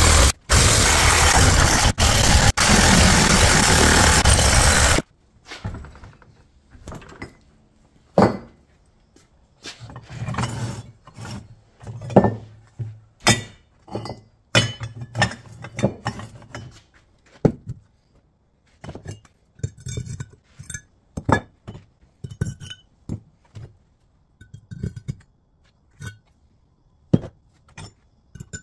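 A power saw cutting through a cast aluminum intake manifold, which cuts off about five seconds in. After that comes a long run of separate metallic clinks and knocks as the cut aluminum pieces are handled and set down on a wooden bench.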